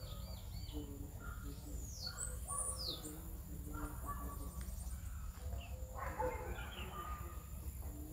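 Outdoor birds chirping and calling, with a few quick, falling high whistles about two to three seconds in, over a steady low rumble.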